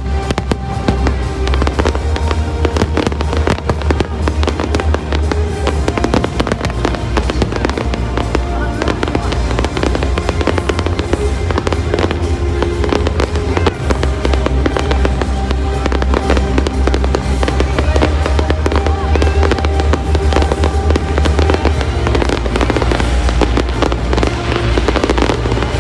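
Fireworks display going off continuously: rapid, dense bangs and crackles over a steady deep rumble. Music plays along throughout.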